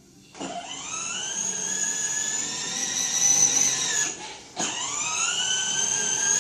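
Electric motor of a small ride-on ATV whining at speed. It starts with a quick rise in pitch, drops out briefly about four seconds in, then winds up again.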